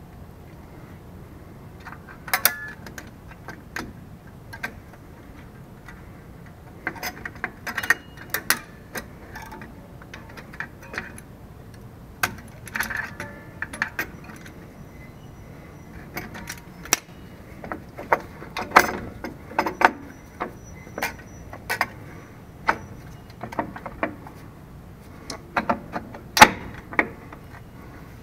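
Irregular metallic clinks, taps and rattles of drum-brake parts being handled and fitted: steel brake shoes, springs and a hand tool knocking against the brake backing plate. The loudest clink comes near the end.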